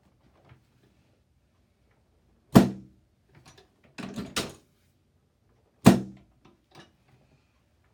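Chiropractic flexion-distraction table clunking as its moving section is worked sideways under the patient. Two loud sharp knocks about three seconds apart, with a quick run of smaller knocks between them.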